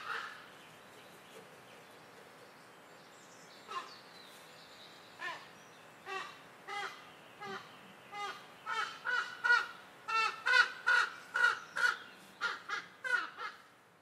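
A bird giving a series of short calls. The calls are sparse at first, then come quickly, about three a second, from about eight seconds in.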